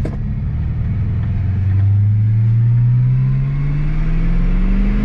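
Holden VY Commodore SS's V8 engine pulling hard in gear, heard from inside the cabin with the windows up, its note rising steadily throughout. A single click comes at the very start.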